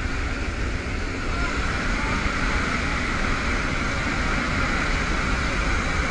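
Steady roar of a military transport plane's engines and rushing air, heard inside the cabin in flight.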